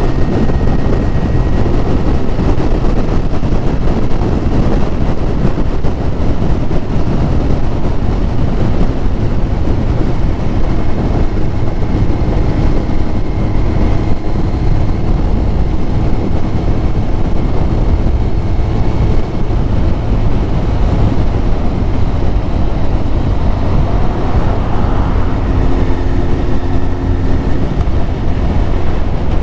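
Yamaha YZF1000R Thunderace's inline-four engine running while the motorcycle is ridden, under steady heavy wind rumble on the rider's microphone.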